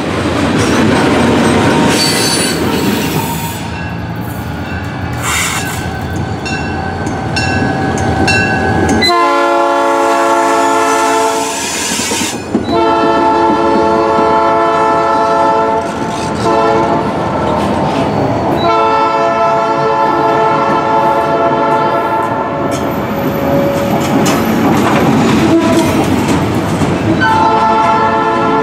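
Ferromex diesel freight trains passing close by: steel wheels rolling and faintly squealing on the rails, with light metallic clicks. Then a locomotive air horn sounds a chord in several long blasts, broken by stretches of engine and wheel rumble.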